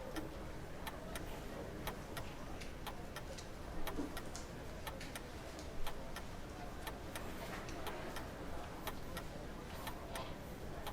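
Café terrace ambience: a steady scatter of light, irregular clicks and clinks, several a second, over a low background murmur, with a couple of louder knocks about four and six seconds in.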